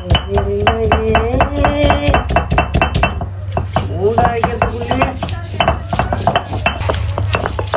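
Ginger being ground on a stone ammi: the cylindrical stone roller rolled back and forth over the stone slab, knocking and scraping against it in rapid clacks.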